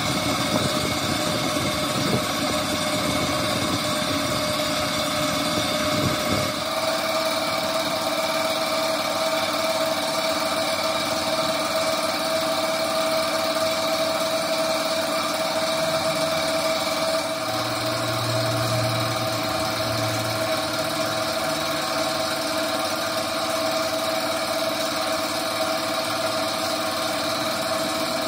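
A machine running steadily: a continuous hum with a steady whining tone that sets in about six seconds in.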